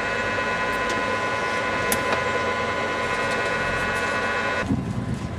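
Horizon H2000 2 kW hydrogen fuel cell system running, a steady whine of several high tones over a hiss. It cuts off abruptly near the end.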